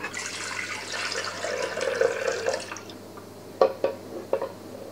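Ingredients poured into a bread machine's non-stick pan, a rushing pour for about three seconds, then a few short sharp knocks of the bowl against the pan as it is emptied.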